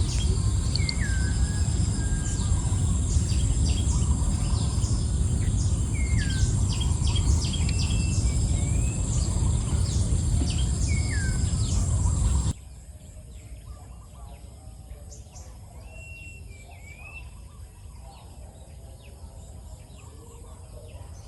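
Birds calling in the open: one bird repeats a short downward-sliding call every two to three seconds among higher chirps, over a steady high insect drone and a loud low rumble. About twelve seconds in, the rumble and drone cut off suddenly, leaving quieter bird chirps and faint insects.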